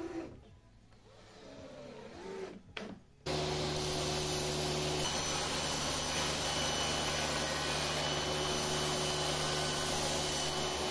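Table saw starts suddenly about three seconds in and then runs steadily, with a constant hum, while a sheet of HPL laminate is fed across it.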